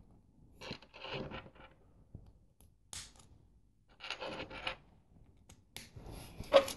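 Small plastic LEGO pieces being handled: brief clicks, taps and light scraping as bricks knock against each other and the tabletop, in a few short bursts with a single sharper click about three seconds in.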